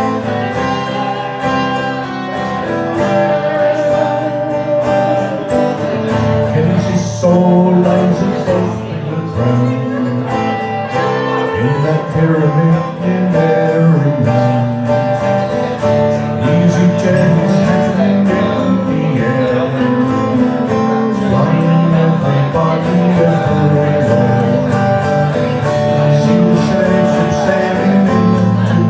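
Strummed acoustic guitar with a voice singing a folk ballad.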